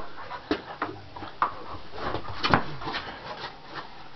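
Scattered knocks and scuffles of a man handling and lifting a large dog, with a few short faint sounds in between.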